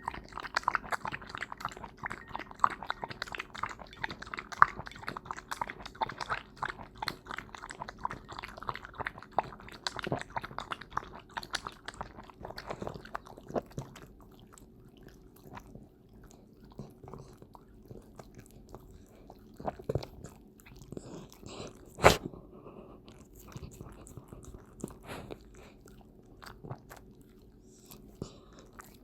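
Welsh corgi lapping milk from a bowl: quick wet tongue clicks and smacks, dense for the first half, then sparser, with one sharp loud knock about two-thirds of the way through.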